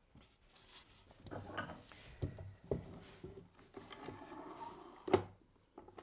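Parallel-jaw bar clamps being set and tightened across two glued white pine boards. A few sharp wood-and-metal knocks, about two, two and a half and five seconds in, with sliding and scraping between.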